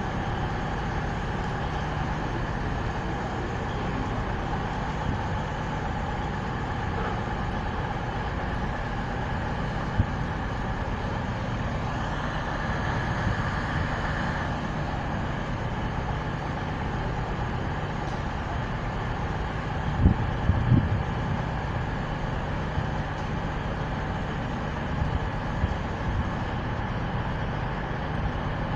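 Class 220 Voyager diesel multiple unit standing at the platform with its underfloor Cummins diesel engines idling, a steady drone. A few short clunks break through, the loudest about twenty seconds in.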